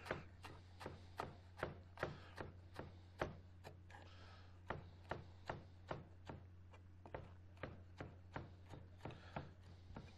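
Chef's knife chopping fresh cilantro on a cutting board: a steady run of quick knocks, about two to three a second, over a faint low hum.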